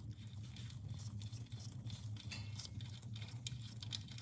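Faint, irregular light clicks and rubbing from gloved fingers turning a loosened oil drain plug out of the car's oil pan by hand, over a steady low hum.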